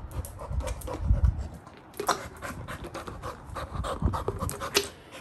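Labrador puppy panting in quick, rapid breaths, with low thumps about a second in and a few sharp clicks as it mouths a person's hand.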